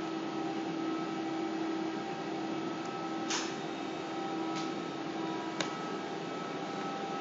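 Steady hum of electrical equipment, a few even tones over a hiss, with three short clicks about halfway through and again near the end.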